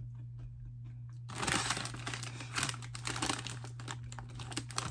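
A crinkly Cheetos Pretzels snack bag being picked up and handled. A dense crinkling starts about a second in, then carries on as smaller crackles.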